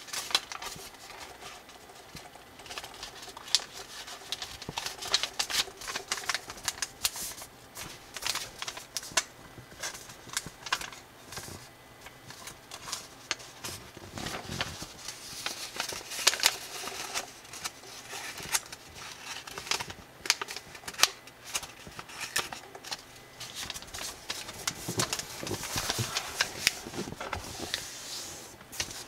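Thin square colored origami paper rustling and crinkling as it is folded and creased by hand, with many quick crisp clicks and snaps as the folds are pressed.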